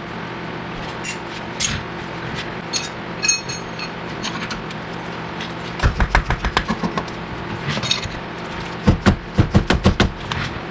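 Metal hand tools clinking against car suspension parts, then two quick runs of fast rattling strokes, about eight a second, over a steady low hum.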